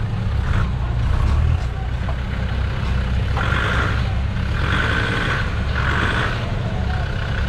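Land Rover Defender engine running at low revs as it creeps over a muddy dirt track, a steady low rumble. A high tone pulses on and off several times in the background from about three seconds in.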